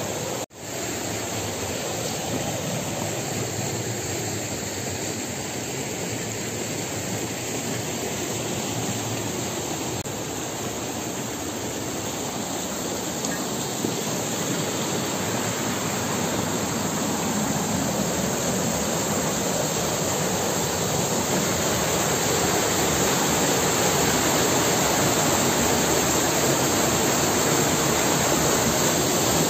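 Steady roar of rushing water, cutting out for a moment just after the start and growing gradually louder through the second half.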